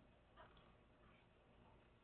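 Near silence: room tone, with one faint, brief sound about half a second in.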